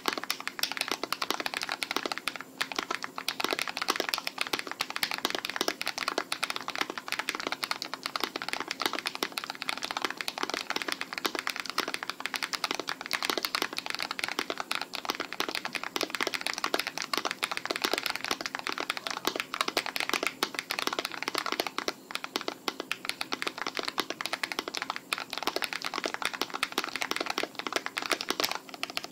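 Fast, continuous typing on a custom 60% mechanical keyboard with lubed Evil Airy tactile switches, an aluminium plate and case: a dense stream of keystroke clacks.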